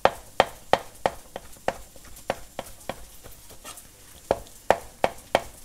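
Chef's knife chopping a thin egg omelette into strips on a plastic cutting board: sharp knocks of the blade on the board, about three a second, with a gap about three seconds in before four more cuts.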